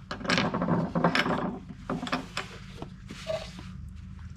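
Clatter and rustle of small parts and tools being handled on a workbench, with a few sharp clicks, over a steady low hum.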